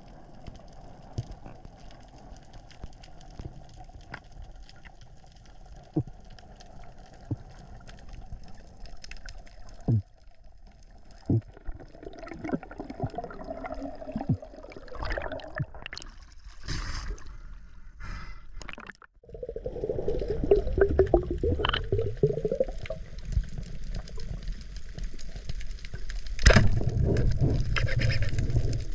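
Water gurgling and bubbling, with faint scattered clicks through the first part. From about two-thirds in, the bubbling and rushing water grows louder and heavier.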